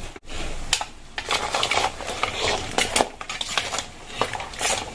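Spatula knocking and scraping against a wok as crabs and corn are tossed in butter sauce, in irregular clatters.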